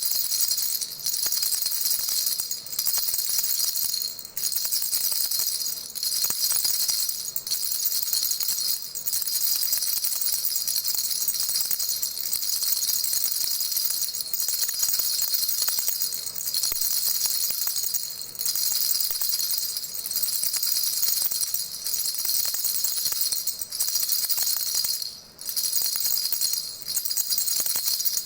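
Baby rattle shaken continuously, giving a bright, jingly shimmer with a short dip about every second and a half.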